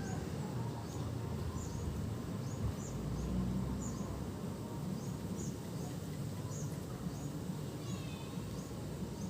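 Strong monsoon wind rumbling and buffeting. Over the wind come faint high chirps about every half second, and a short call about eight seconds in.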